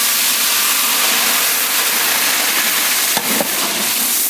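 Ground green masala paste sizzling steadily in hot sesame oil, with a faint knock about three seconds in.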